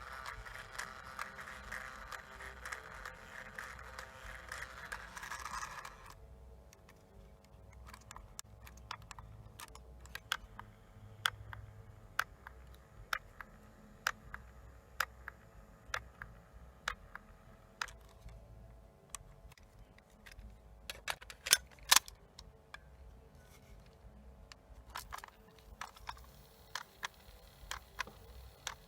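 Small handling noises of a portable cassette player: a scraping rustle for about six seconds, then a long run of small, irregular clicks and ticks, two of them louder about 21 seconds in.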